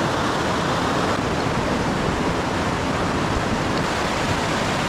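Steady rushing of a fast-flowing mountain river, the Lidder, an even wash of water noise with no change.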